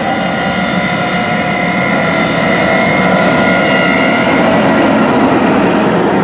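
Big John Deere farm machines (combines and grain-cart tractors) running on the road: a steady, loud diesel drone with several whining tones over it.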